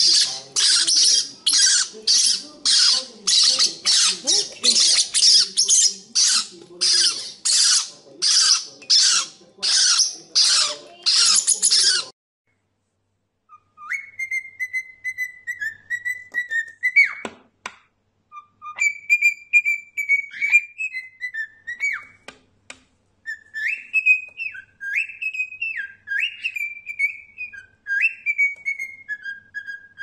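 Young parrotlets giving rapid, harsh begging squawks, about two a second, while being spoon-fed; the calls stop suddenly about twelve seconds in. After a short silence a cockatiel whistles a tune of gliding notes, several of them sweeping sharply upward.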